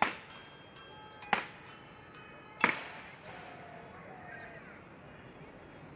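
Horror sound-effect hits: three sharp strikes about a second and a quarter apart, each leaving high, chime-like ringing tones that fade away, then a faint hiss for the last few seconds.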